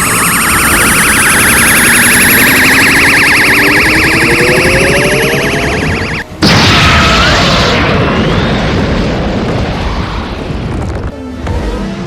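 Goku's Kamehameha energy-beam sound effect: a pulsing charge-up whine climbing in pitch for about six seconds, then a brief cut and a sudden loud blast of the beam firing that rushes and slowly fades. The charge-up starts again near the end.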